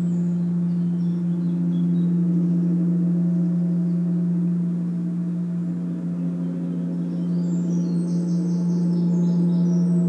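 Gong sounding a sustained, steady low hum with a stack of ringing overtones, easing slightly in the middle and swelling again. Faint high chirps come in near the end.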